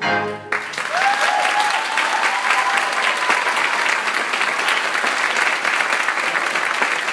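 Theatre audience applauding as the orchestra's last chord cuts off, with a long rising cheer from the crowd about a second in.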